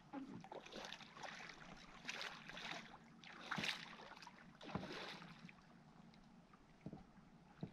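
A large tarpon thrashing at the surface beside a kayak, making irregular short splashes, the strongest about three and a half seconds and nearly five seconds in.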